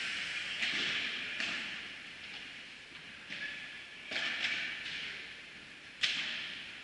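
Padel ball being hit back and forth with rackets and bouncing during a rally: about five sharp hits a second or so apart, each with a long echo.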